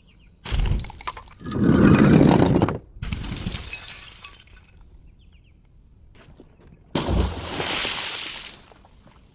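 Glass bottle breaking: a knock, then a loud shattering crash with glass rattling and tinkling as it dies away, and a second loud crash about seven seconds in.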